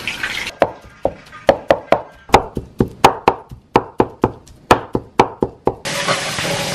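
Cleaver chopping pork into mince on a wooden cutting board: a fast run of sharp knocks, about four or five a second, for about five seconds.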